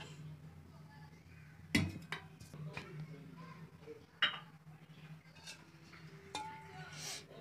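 Stainless steel kadai and metal utensils clinking on a gas stove: a sharp metallic clank a little under two seconds in, another a little after four seconds, and several lighter clinks between, over a faint steady low hum.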